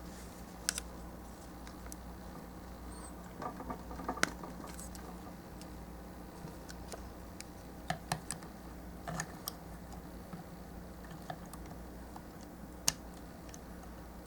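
Plastic model kit parts of a High Grade Raider Gundam being handled and snapped together: scattered small clicks and taps, a few sharper snaps, over a steady low hum.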